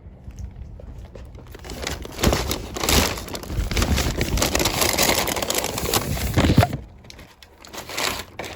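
Close rustling and crinkling handling noise, irregular and crackly, building about two seconds in and stopping abruptly near the end, with a brief flurry after.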